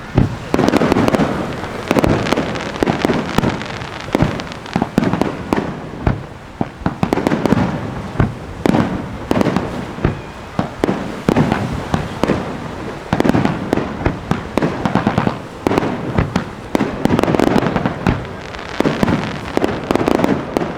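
Fireworks display: aerial shells bursting in quick succession, booms about once a second with sharp bangs and crackling between them.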